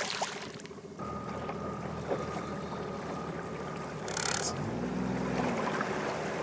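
Small outboard motor running as the fishing boat moves along at trolling speed, with wind and water noise; the engine note rises and falls once about five seconds in.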